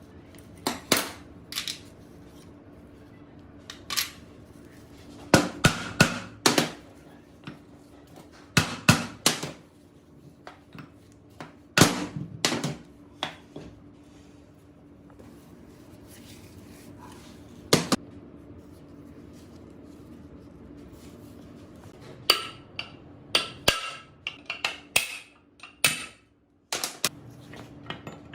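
Irregular sharp metallic knocks and clanks of tools and engine parts being handled and struck, some in quick clusters of two or three, over a steady low hum.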